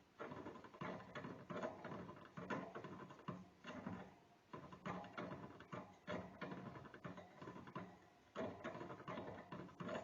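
A small rodent gnawing, its teeth scraping in quick runs of clicks that come in bursts of about a second, with a longer pause near the end: the animal is wearing down its incisors.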